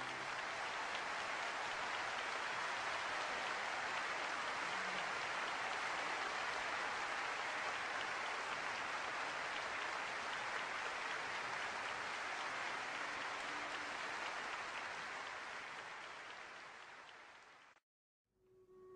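Audience applauding, a steady dense clapping that fades away and stops short about a second before the end.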